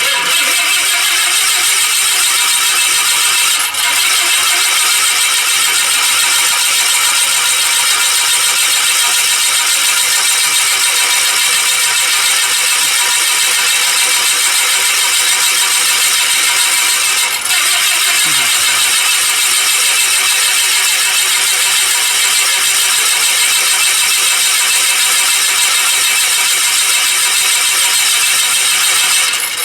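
Light aircraft's piston engine and propeller running steadily at close range, loud and unchanging.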